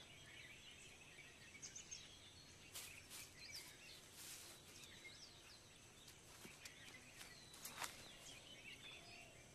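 Faint outdoor ambience with small birds chirping in short high calls and a few brief clicks.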